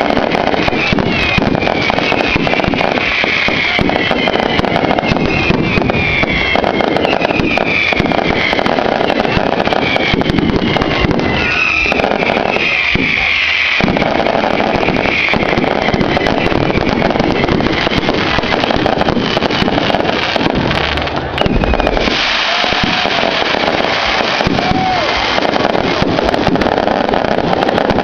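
Large bonfire burning with dense, continuous crackling and popping, over a crowd's voices.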